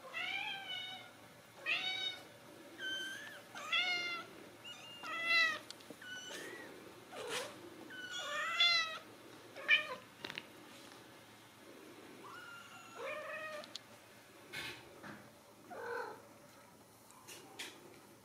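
Ragdoll kittens meowing: about a dozen short, high-pitched mews, each rising and then falling in pitch, coming in irregular runs with short gaps.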